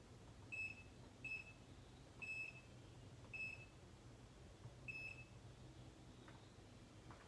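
Electronic test meter beeping: five short, high beeps at uneven intervals over about five seconds, followed by a couple of faint clicks near the end.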